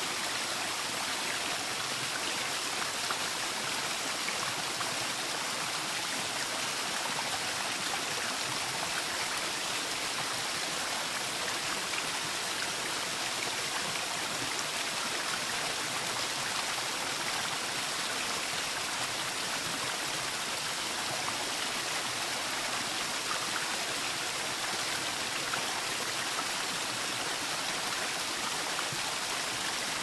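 Waterfall: a steady, unchanging rush of falling water with a bright hiss.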